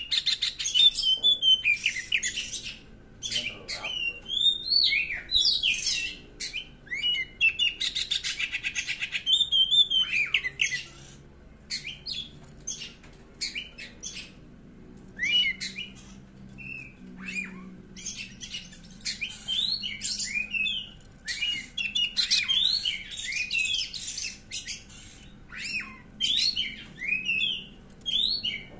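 Oriental magpie-robin singing a varied song of whistled notes and chattering phrases, broken by short pauses, with a fast rattling run about eight seconds in. It is the excited, agitated song of a male flaring its tail.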